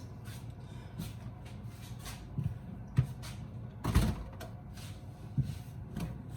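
Scattered knocks and clunks of objects being handled, such as a cupboard door or things being moved about. The loudest thump comes about four seconds in, with lighter knocks around it.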